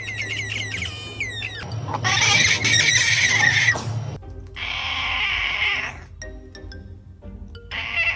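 A cat making strange vocal sounds: a quick run of high gliding chirps, then two long, rough, noisy cries, the first the loudest, over background music.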